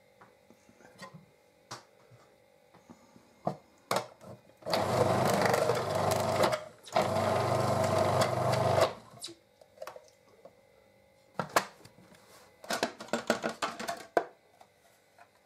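Electric food processor motor running in two pulses of about two seconds each, chopping onions, carrots, celery and mushrooms. The plastic lid and pusher click and rattle before and after.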